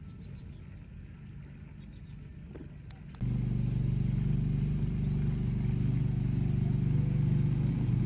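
A faint low hum, then after a sudden cut about three seconds in, a boat engine running steadily with a low, even drone, much louder than before.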